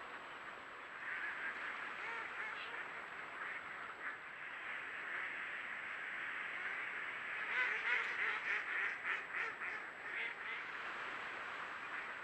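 A large flock of ducks quacking and chattering together, with a louder run of rapid quacks about eight seconds in.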